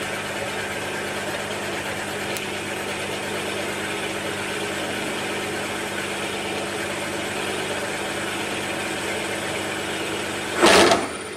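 Milling machine running, its spindle turning a boring bar for a light finishing cut in a hole in a cast iron rocker arm: a steady motor-and-spindle hum. Near the end there is a short, loud burst of noise.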